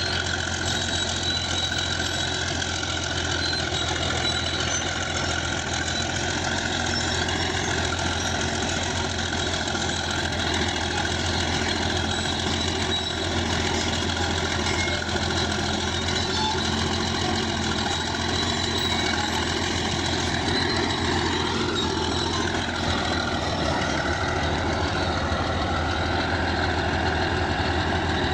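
A bulldozer's diesel engine running steadily, its pitch shifting slightly about twenty seconds in.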